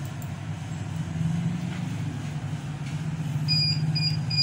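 A steady low hum, and near the end a quick run of four short high-pitched beeps from the Dahua NVR's buzzer, typical of its alarm for no hard drive installed.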